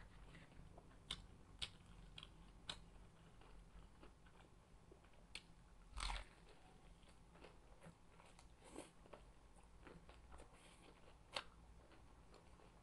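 Faint eating sounds: scattered crisp crunches and chewing as crispy fried chicken (Jollibee Chickenjoy) is bitten and chewed, with a louder crunch about six seconds in.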